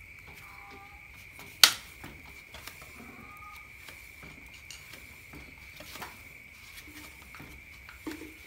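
Sparse clinks of hand tools being worked on a motorcycle: one sharp metallic clack about a second and a half in, then a few faint ticks, over a steady high-pitched whine.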